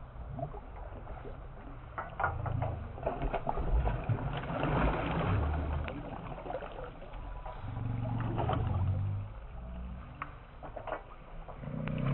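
Water splashing as a big hooked catla thrashes and rolls at the surface, in uneven spurts with scattered sharp splashes, loudest about four to six seconds in, over a low rumble.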